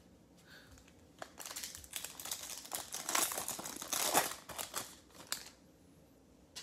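Foil wrapper of a Topps Chrome baseball card pack crinkling and tearing as it is ripped open by hand. It starts about a second in, is busiest in the middle and stops about a second before the end.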